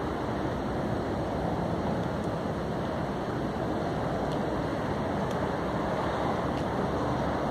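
Steady rushing of wind buffeting the microphone, with no change in level.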